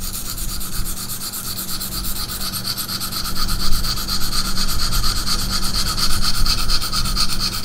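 600-grit diamond sharpening stone on a KME guided-rod knife sharpener rasping steadily against a steel knife edge in rapid, continuous short up-and-down strokes.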